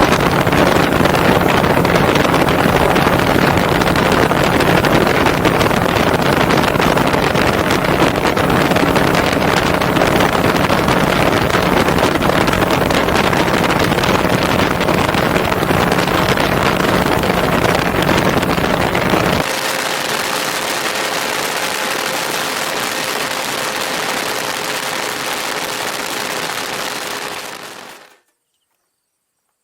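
Boat motor running at speed with heavy wind buffeting on the microphone. About two-thirds of the way through, the sound abruptly drops to a quieter, steady hum with a higher tone. Near the end it cuts off suddenly.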